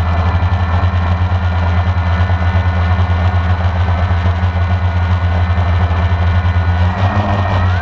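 Electric motors and propellers of a small radio-controlled aircraft, heard through its onboard camera: a steady buzz with a high motor whine that drifts with throttle and rises near the end.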